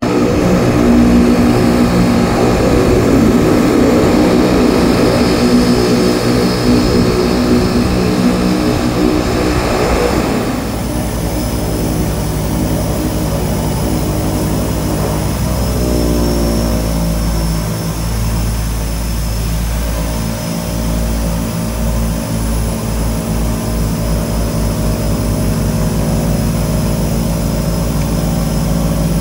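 Twin-turboprop floatplane's engines and propellers running as it taxis on the water. About ten seconds in the sound changes abruptly to the steadier, slightly quieter drone heard from inside the cabin beside a spinning propeller.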